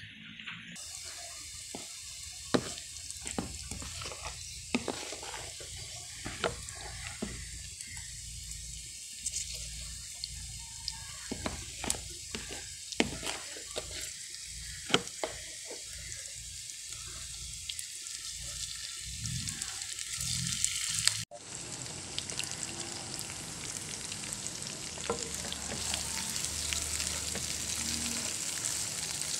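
Sliced shallots, onion and garlic sizzling in hot oil in a frying pan, with frequent sharp clicks. After a cut about two-thirds of the way through, the sizzling is louder and denser as red sambal chili paste is stirred into the pan with a spatula.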